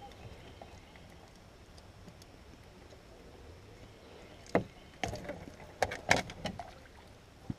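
Sharp knocks and clatter in a small jon boat as a small catfish is unhooked from a landing net with pliers. The knocks come in a cluster from about four and a half seconds in, with one more right at the end, after several quiet seconds.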